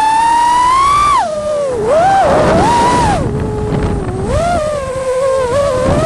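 Brushless motors and propellers of a 5-inch FPV freestyle quadcopter (Amax Inno F5, 1950 kV motors on 6S) whining, the pitch rising and falling with throttle. About two seconds in, a rush of air swells for a second or so and then fades.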